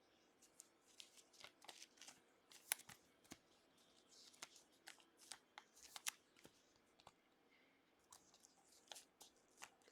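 Faint rustling and scattered clicks of football trading cards and pack wrappers being handled and shuffled between packs, the sharpest clicks about three and six seconds in.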